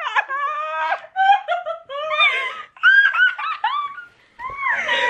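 Girls laughing hard in high-pitched giggles that rise and fall, with a short lull about four seconds in.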